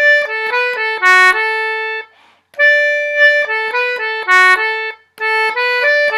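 Anglo concertina playing three short runs of quick notes, with brief pauses about two and five seconds in. The notes are built on a D major arpeggio with a B in it, sounded on push and pull of the bellows.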